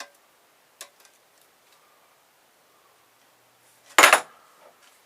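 Small metal clicks as a car stereo's parts are handled during teardown, then a loud, brief metallic clatter about four seconds in, as of a metal piece or tool set down hard on the work table.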